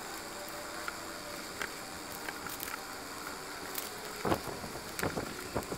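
A cardboard shipping box being cut open with a utility knife and handled: scattered small scrapes and clicks, with a cluster of louder scrapes and knocks about four to five seconds in, over a steady background hiss.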